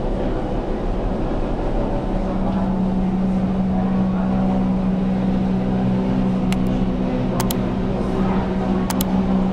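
A steady low mechanical hum that sets in about two seconds in, with a few light sharp clinks near the end.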